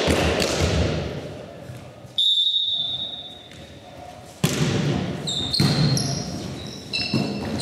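Volleyball rally in an echoing sports hall: sharp smacks of the ball being hit, about two seconds in and again about four and a half seconds in, with sneakers squeaking on the hall floor and players' voices.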